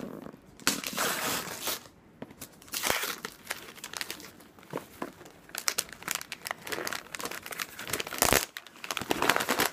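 Gift wrapping paper being torn and crumpled by hand as a present is unwrapped, in irregular rustling bursts that grow busier in the second half.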